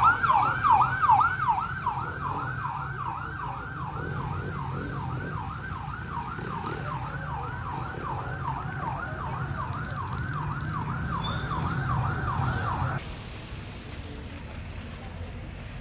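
Vehicle siren on a fast wail, its pitch sweeping up and down about three times a second over an engine hum. It cuts off suddenly about 13 seconds in.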